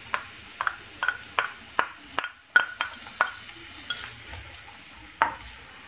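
Wooden spatula tapping and scraping against a serving spoon and frying pan, about a dozen irregular knocks as chopped onion, garlic and herbs are pushed into hot oil and stirred. A faint steady sizzle of the onion frying runs underneath.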